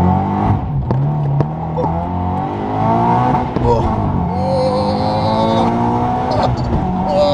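HKS-supercharged Toyota GT86 flat-four accelerating hard through the gears, heard from inside the cabin: the revs climb, drop back at each shift about every two to three seconds, and climb again, with a rising supercharger whine over the engine.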